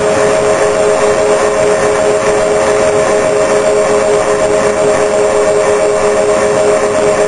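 Twin brushless electric motors and propellers of a Multiplex TwinStar II RC plane running at a steady speed in flight, heard from a camera on the plane: a steady whine of several close pitches over a loud rush of wind.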